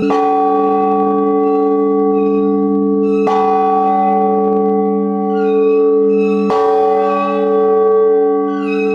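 Newly blessed large Orthodox church bell struck three times, about three seconds apart, each stroke ringing on into the next with the same deep hum and overtones.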